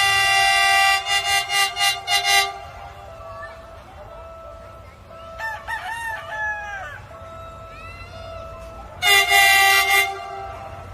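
Diesel-hydraulic locomotive's horn sounding one long blast, then a quick run of about five short toots, and another blast of about a second near the end. A rooster crows in between.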